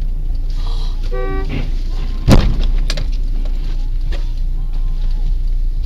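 Steady engine and road rumble heard inside a car, a brief horn toot about a second in, then a loud bang about two seconds in, the loudest sound, as a skidding car strikes the car.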